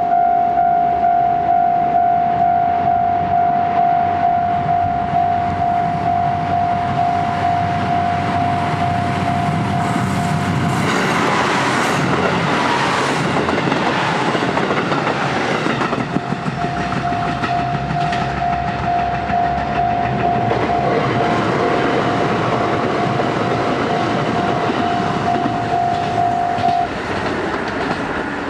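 A level-crossing warning bell rings in a steady repeating tone about twice a second. From about 11 to 16 seconds, a KiHa 85 series diesel express train passes close by, accelerating, in a loud rush of engine and wheel noise with clatter over the rail joints. The bell is heard again after the train has gone and stops near the end.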